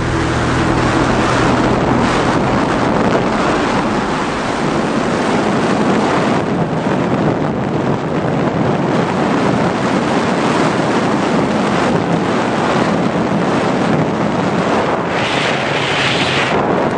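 Steady rush of wind buffeting the onboard camera's microphone as the Multiplex Twin Star 2 model plane flies, turning brighter and hissier for about a second and a half near the end.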